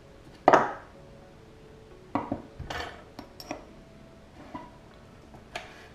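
Irregular metal-on-metal knocks and clinks from hand tools and steel transmission parts, sharpest about half a second in, then a handful of lighter ones. They come as an old bushing is knocked out of a 4L60E sun gear.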